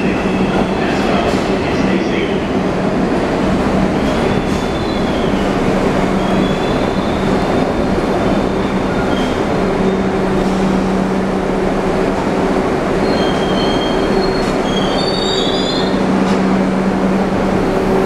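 R62 subway train pulling into an underground station: a steady rumble and hum of the train running along the platform, with high wheel and brake squeals several times, the longest near the end as it slows to a stop.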